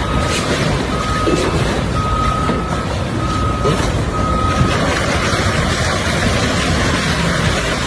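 Heavy vehicle's engine running, with a reversing alarm beeping at one steady pitch. The beeping stops a little past halfway through, leaving the engine and a rushing hiss.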